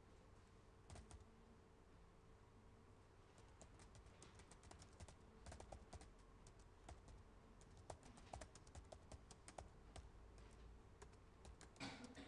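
Faint typing on a computer keyboard: quick irregular runs of key clicks, starting about three seconds in.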